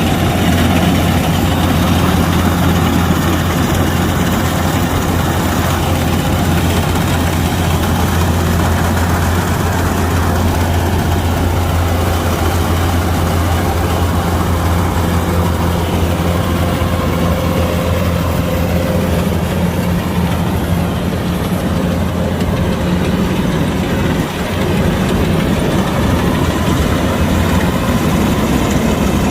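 Kubota DC-105X combine harvester's diesel engine running steadily at a constant speed.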